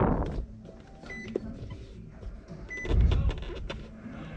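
Two short electronic beeps about a second and a half apart, typical of button presses on a handheld scan tool, with a brief low rumble about three seconds in.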